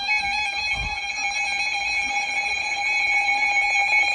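NOAA Weather Radio Emergency Alert System alert signal: steady, unbroken electronic alarm tones.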